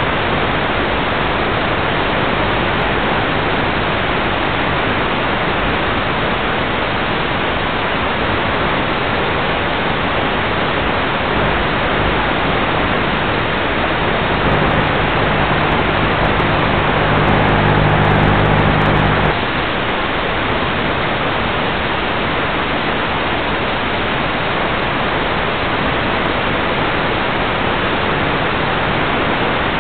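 Steady hiss from the onboard audio of an FPV model aircraft gliding with its motor off. Past the middle, a low buzzing hum with several overtones joins for about five seconds and then cuts off suddenly.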